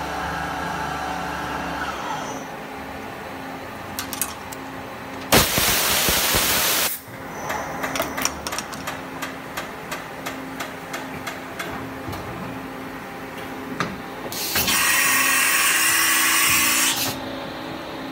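CNC machining center running its program: a steady machine hum, then two loud hissing bursts of about two seconds each, with a run of regular clicks between them.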